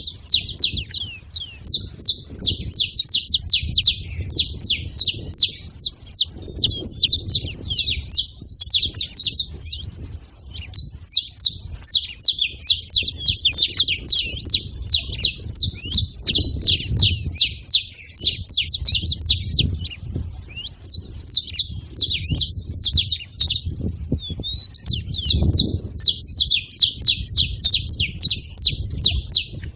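A flock of saffron finches chattering, many rapid high chirps overlapping almost without a break, with a few brief lulls.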